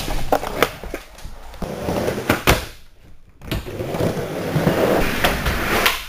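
Skateboard wheels rolling on plywood ramps, broken by several sharp clacks and knocks of the board hitting the wood, with a brief hush around the middle.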